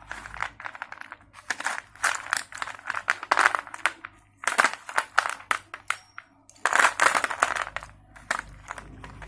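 Slate pencils crunching: rapid crisp crackling in several bursts, with short pauses between them.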